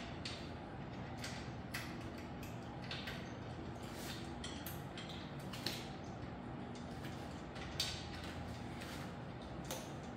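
Hands working on a folding electric bike's handlebar and stem during setup: scattered clicks, light taps and creaks of the parts and their foam packaging, a few sharper clicks among them, over a steady low hum.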